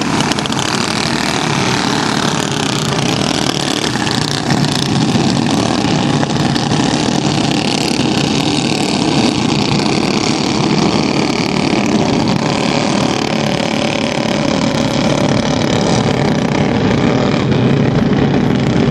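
Engines of a field of racing vehicles running together on the track, a steady, continuous drone.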